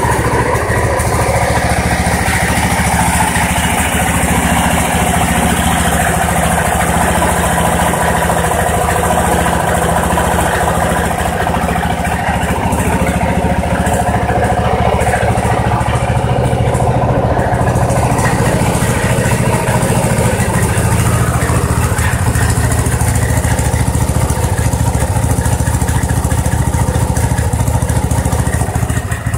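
Ranch King garden tractor's newly swapped-in engine running steadily at idle on its test run.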